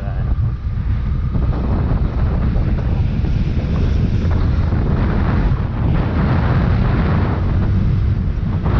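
Wind buffeting the microphone on a moving motorcycle, with the bike's engine running underneath, steady throughout.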